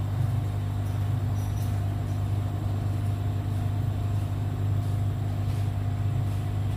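Hot-air heat gun blowing steadily, a constant fan hum with a rush of air, while it heats a new charging jack to solder it onto a phone's circuit board.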